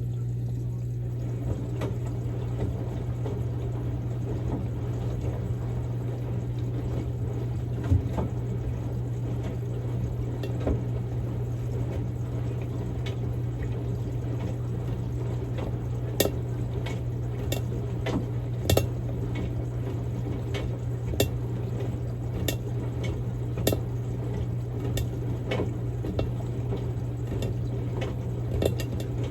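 Samsung Grande washing machine on a quick-wash cycle with a padded jacket inside. Water sloshes as the drum turns over a steady motor hum, with scattered sharp clicks and taps that come more often in the second half.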